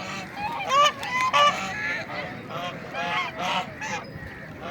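White domestic ducks quacking: a run of short, overlapping quacks from several birds, the loudest about a second in.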